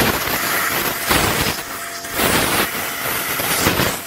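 Compressed-air blow gun blasting into an empty brake caliper piston bore to clear out the last debris, in several short hissing blasts about a second apart.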